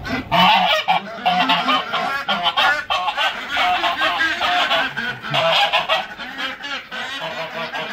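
Domestic geese honking in a rapid, unbroken series of loud calls, with ducks among them.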